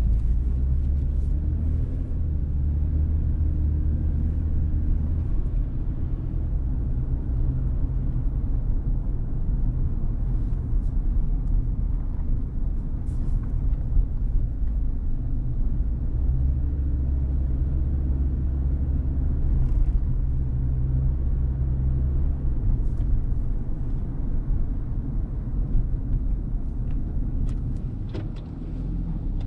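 Low rumble of a car driving slowly, its engine hum and road noise steady with small rises and falls.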